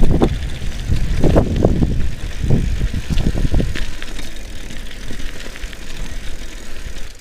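Mountain bike rolling fast down a rough gravel dirt road: tyre rumble with irregular knocks and rattles as it rides over stones, busiest in the first four seconds and easing after that.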